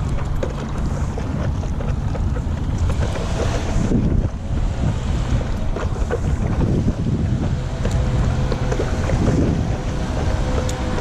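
Wind buffeting the microphone over open water, with water sloshing and splashing around a stand-up paddle board as it is paddled along, a few strokes standing out.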